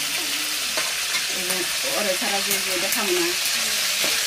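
Food sizzling steadily in hot oil in a metal karahi, with a metal spatula scraping and clicking against the pan as it is stirred.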